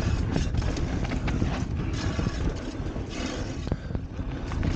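2015 Norco Range enduro mountain bike running fast down a rough dirt trail: tyres on dirt, the bike rattling and clicking over bumps, and a heavy low rumble of wind on the microphone. Among the rattles is a noise that the rider puts down to a slightly warped brake rotor.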